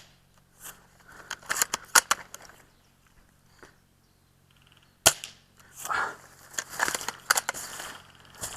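Airsoft gunfire: sharp cap-gun-like cracks and clicks, a quick cluster in the first couple of seconds, a single strong crack about five seconds in, then more clicks mixed with handling and rustling noise near the end.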